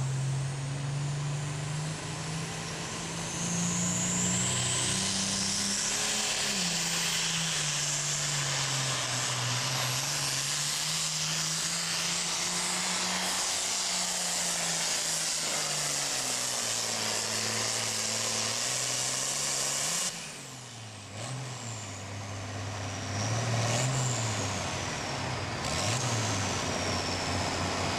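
Super farm pulling tractor's diesel engine running at full power as it drags the weight sled, its pitch rising and falling through the run. About two-thirds of the way in the sound drops off suddenly, then the engine surges up and down in short revs with high whistles.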